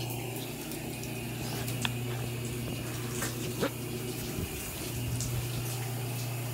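Shower running behind a curtain: a steady hiss of spraying water, with a steady low hum underneath and a few faint clicks.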